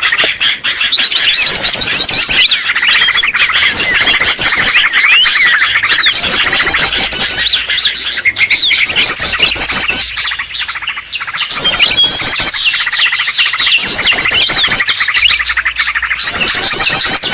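Greater green leafbird calls on a bird-lure recording: a dense, loud, unbroken tangle of excited chirps, whistles and fast trills. The same trill phrase comes back every couple of seconds.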